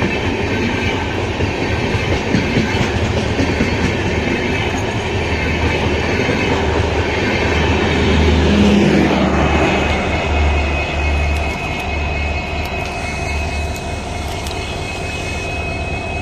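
A passenger train's LHB coaches pass close at speed, with a dense rumble and the clatter of wheels over the rail joints. About nine seconds in the rolling noise eases as the last coach goes by, and a steady high whine from the rails or wheels carries on.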